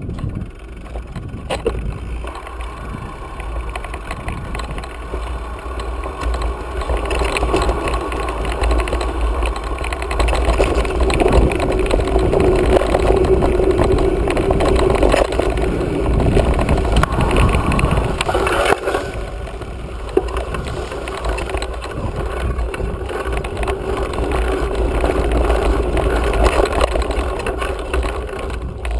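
Mountain bike rolling fast along a dry dirt trail, heard from a camera on the rider: a steady rush of wind buffeting the microphone over the rumble and rattle of the tyres and bike on the dirt. It gets louder from about ten seconds in.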